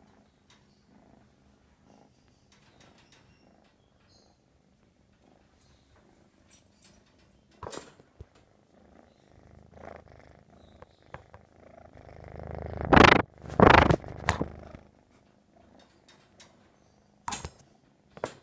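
American Shorthair kitten purring steadily and without a break. Loud rustles and bumps come as its face and fur rub against the microphone, heaviest in a stretch about two-thirds of the way through.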